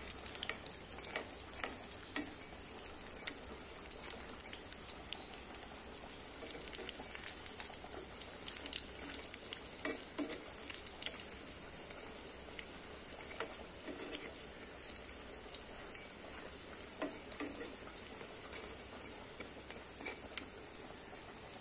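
Masoor dal fritters sizzling in hot oil in a frying pan, with a metal spatula scraping and tapping against the pan now and then as they are turned. The fritters are cooked through, being flipped before they come out.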